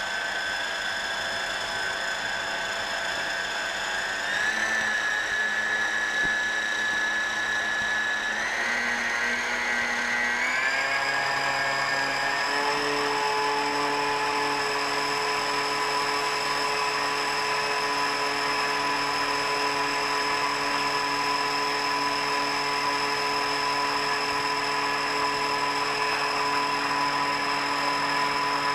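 Lab rotor-stator homogenizer (high-shear mixer) running with its head in a beaker of liquid: a steady motor whine that steps up in pitch about four seconds in and again several times from about eight to twelve seconds in as its speed is raised, then holds steady.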